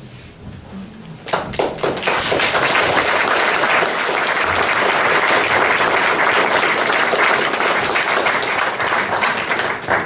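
Audience applauding: a few scattered claps about a second in, quickly building to full, steady applause that drops away near the end.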